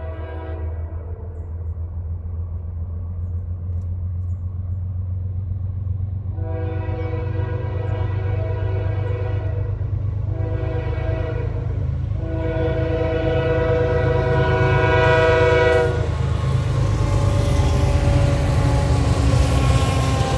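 Diesel locomotive air horn sounding the grade-crossing pattern as the train approaches: a blast ending just at the start, then a long blast about six seconds in, a short one and a final long one. After the last blast the locomotive rumbles past, getting steadily louder.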